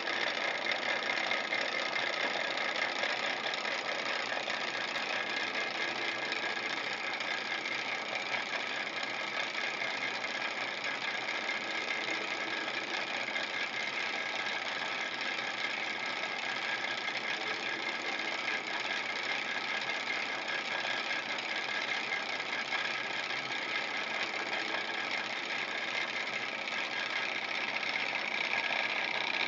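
Small Hog Stirling hot-air engine running steadily and belt-driving a tin toy carousel: an even, rapid mechanical ticking and whirring.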